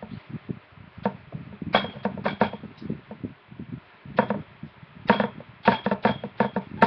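Hockey stick shaft knocking and tapping irregularly while a wad of tape tar is rubbed hard onto it.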